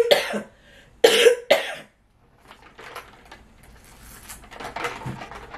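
A woman's dry cough: three coughs, one at the start and two more close together about a second in. Then quiet sipping through a straw.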